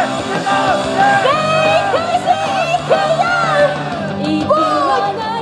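A pop song performed live by an idol group: high voices singing a melody over a loud backing track, with some shouting mixed in.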